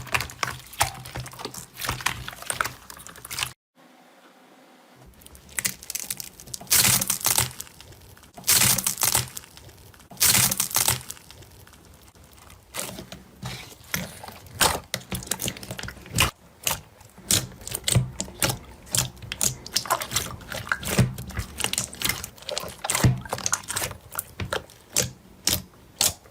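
Slime being squeezed and poked by hand: a dense, irregular run of crackling clicks and pops, broken by a second or so of silence about four seconds in.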